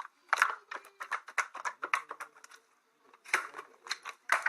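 Slime being squished and worked by hand, giving a quick run of wet clicks and pops, with a short pause a little past the middle.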